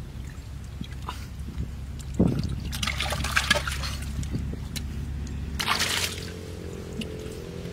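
Muddy water trickling and sloshing as hands dig and scoop at a hole in an earthen bank, with a few short louder splashes. A low steady hum runs underneath.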